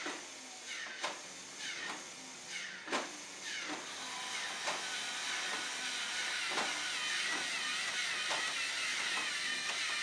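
Electric motors and plastic gears of a LEGO Mindstorms clock whirring as they turn its segments: short whirs falling in pitch, with clicks between them, then from about four seconds a continuous wavering whir.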